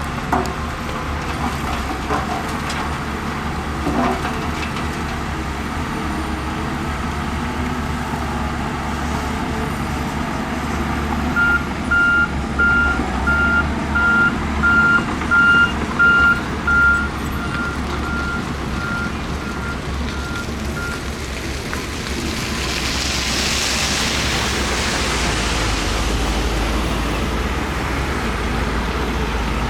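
Heavy diesel construction machinery running steadily, with a couple of clanks in the first few seconds. A reversing alarm beeps about every three-quarters of a second for roughly ten seconds from the middle, then a hissing rush swells for a few seconds as the engine's rumble gets louder.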